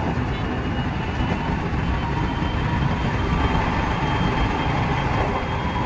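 JR West 207 series electric train running at speed, heard from inside the driver's cab: a steady rumble of wheels on rail with a faint high whine over it.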